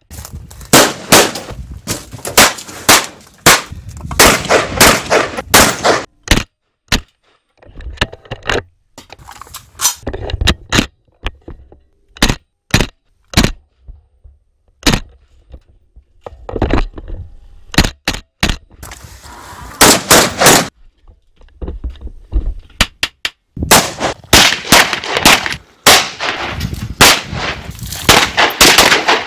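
Gunfire from AR-style scoped rifles: many sharp shots, fired in quick strings with short pauses between them.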